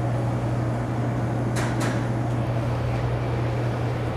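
Steady low machine hum, with two quick clicks close together about a second and a half in.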